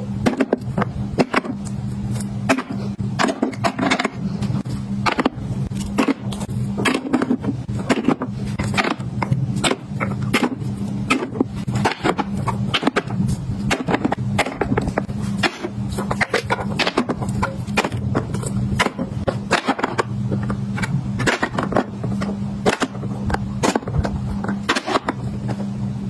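Metal cat-food cans being stacked on a shelf: many quick clinks and knocks as the tins are set down and tap against one another, some sliding with a scrape, over a steady low hum.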